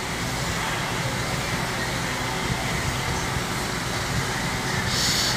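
Steady background hum and hiss, with a brief higher hiss about five seconds in.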